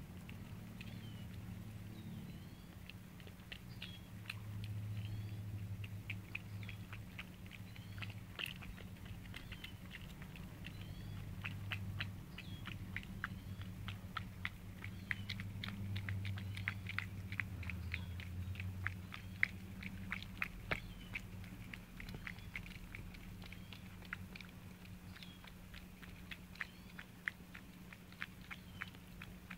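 Two cats eating wet food in gravy from bowls: a long, fast run of small sharp, wet clicks and smacks of chewing, several a second, over a steady low hum.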